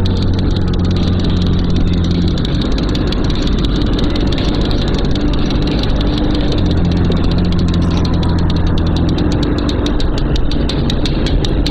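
Motorcycle engine running on the road, with wind and road noise. A steady low engine note holds, drops away, then returns. Near the end a quick, regular ticking grows stronger.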